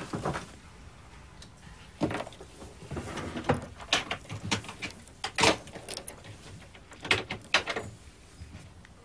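Papers and photographs being shuffled and handled on a desk: a string of short, irregular rustles and knocks.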